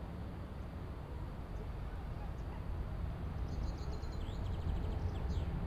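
Outdoor ambience: a steady low rumble, with a small bird giving a rapid, high-pitched chirping trill from a little past halfway to near the end.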